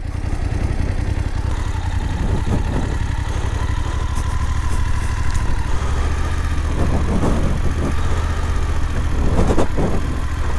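Motorcycle engine running steadily at low revs with a deep rumble, with a few light knocks over it.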